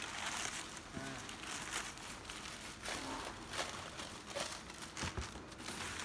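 Crumpled packing paper crinkling and rustling irregularly as it is unwrapped by hand from a glass item and handled in a cardboard box.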